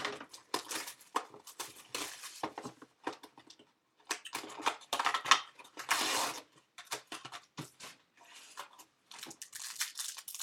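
Trading-card packaging being torn open and handled: irregular crinkling, tearing and scraping of wrapper and cardboard, busiest about halfway through.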